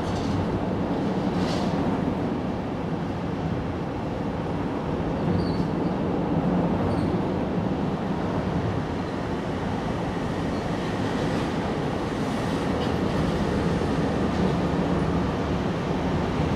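Steady low rumble of outdoor background noise, with a couple of faint short high chirps about five to seven seconds in.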